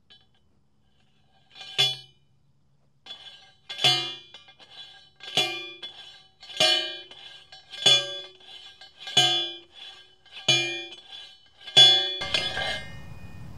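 A post driver pounding a metal stake post into the ground: eight sharp clanging strikes with a ringing tail, about one every 1.3 seconds.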